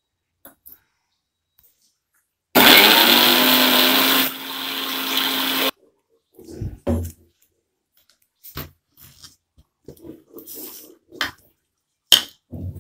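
Preethi mixer grinder motor running for about three seconds, blending spices, chilli powder and water into a wet masala paste. Its level drops partway through, and it stops abruptly. Scattered knocks and clinks follow as the steel jar is lifted off the base and handled.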